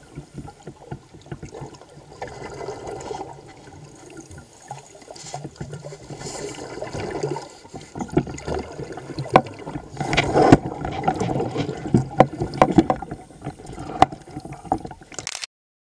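Underwater sound of scuba divers under lake ice: exhaled air from regulators bubbling and gurgling, with many sharp clicks and knocks, louder in the second half. It cuts off suddenly near the end.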